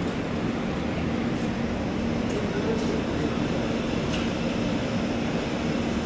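Air-conditioning exhaust of a standing LHB AC coach running: a steady rushing noise with a constant low hum.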